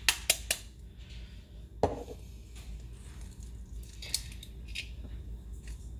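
A brown egg tapped sharply three times against a rim to crack its shell, then a single clink with a short ring just under two seconds in and a few faint clicks later, while eggs are being separated.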